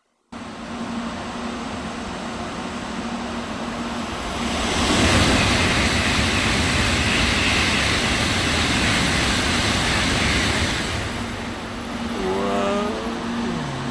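N700A Shinkansen bullet train passing through the station at speed: a rushing noise of air and wheels that swells about four seconds in, holds for around six seconds, then eases off.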